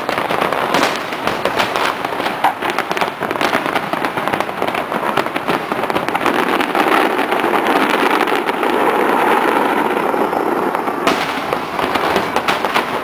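Aerial fireworks crackling and popping in rapid, dense succession, a continuous barrage of sharp reports that thickens in the middle and eases near the end.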